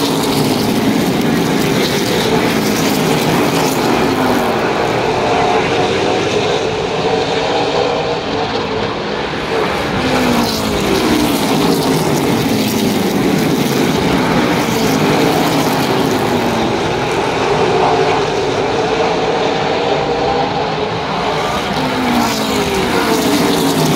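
A field of super late model stock cars running laps on a short oval. Their V8 engines rise and fall in pitch over and over as the cars power out of the turns and pass by.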